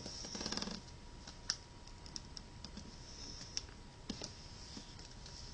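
A sheet of origami paper being folded and creased flat by hand on a tabletop: a short rustle in the first second, then scattered light ticks and taps as fingers press the crease down.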